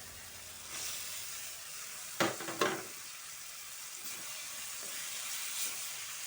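Food sizzling as it fries in a pan, with a steady hiss, and a utensil stirring it that knocks against the pan twice a little over two seconds in.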